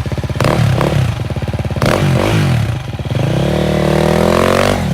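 Four-stroke dirt bike engine revving hard in bursts, with a few sharp knocks, as it works its way over rocks; near the end it climbs in a long rising rev, then drops.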